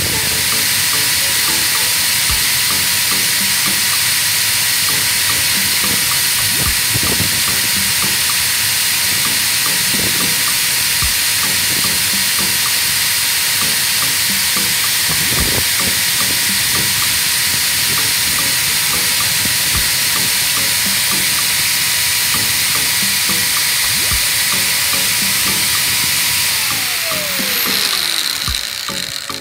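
Angle grinder disc grinding a small metal rod that turns in a mini-lathe chuck: a steady, loud grinding hiss over a thin motor whine. Near the end the whine falls in pitch and the noise fades as the grinder spins down.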